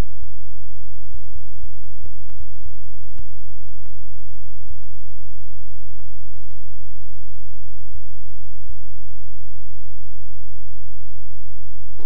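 Loud steady low electrical hum with scattered clicks and crackles, the noise of an old film or tape transfer, and no other sound.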